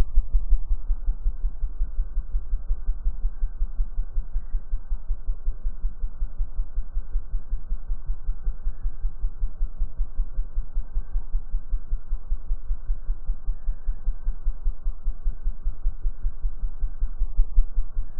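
Hummingbird wingbeats slowed to one tenth speed, turning the wing hum into a deep, even throb of about five beats a second.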